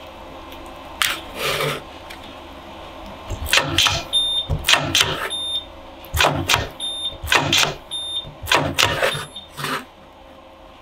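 A battery spot welder welding nickel connecting strips onto the tops of NiCd/NiMH cells gives a series of sharp snaps, mostly in quick pairs, about a dozen in all. Short high beeps fall between some of the welds.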